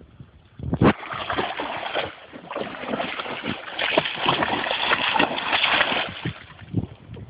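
A dog splashing through river water, a dense run of rapid splashes that starts about a second in and dies away near the end.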